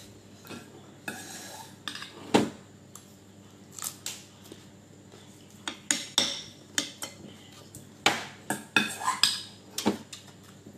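A metal spoon clinking and scraping against a stainless steel bowl during a meal. The knocks come irregularly, with one loud one about two seconds in and a dense run of clinks in the second half.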